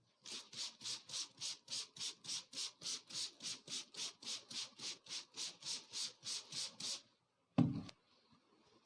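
A barber's hands rubbing a scalp and hair in a fast, even rhythm of about three to four strokes a second during a head massage. Near the end this stops, and one short, loud knock follows.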